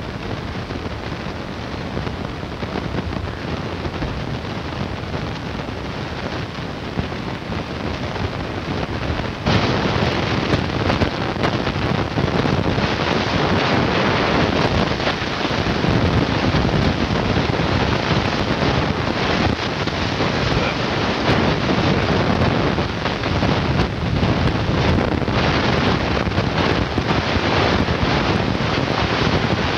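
Wind buffeting a camcorder microphone: a steady rushing noise with no pitch to it, which gets louder about nine and a half seconds in.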